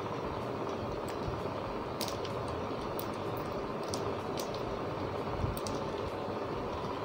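Steady background room noise with a few faint, scattered clicks that sound like typing.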